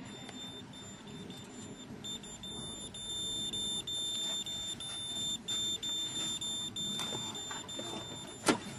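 Handheld CSL RFID reader in Geiger-counter tag search mode, beeping with a high tone that turns louder and almost continuous, with short breaks, from about two seconds in: the beeping signals that the reader is closing in on the tagged binder. A sharp knock near the end.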